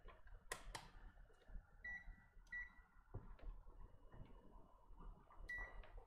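Digital multimeter beeping three times, each beep short and high-pitched, after two faint clicks about half a second in.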